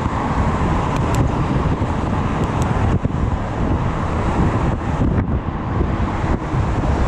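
Steady traffic noise from the car lanes alongside, mixed with wind rumbling on the chest-mounted camera's microphone as the bike rides along.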